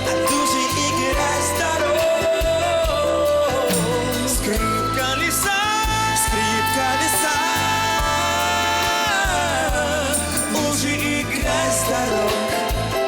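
Live pop-rock band playing with a steady drum beat under a male vocal line sung without clear words. About five seconds in, the voice holds one long high note for several seconds, then slides down.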